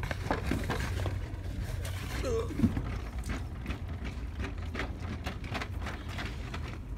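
Handling noise while shopping: a stream of small clicks and knocks over a steady low rumble, with a short sliding tone about two and a half seconds in.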